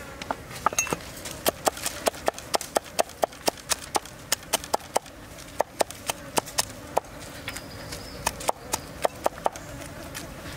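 Cleaver chopping garlic on a wooden chopping board: a steady run of sharp knocks, about four a second, with a brief slower stretch about halfway through.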